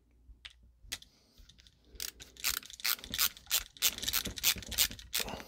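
A screwdriver turning the green ground screw on a light switch down onto a looped copper ground wire. After a couple of nearly quiet seconds with a few single clicks, it gives a fast, even run of sharp clicks, about four or five a second.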